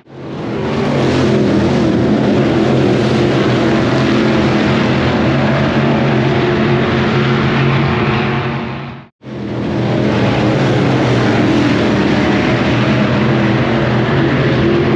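Late model race car engines running loud and steady at racing speed, with a brief drop to silence about nine seconds in where the sound cuts from one stretch to another.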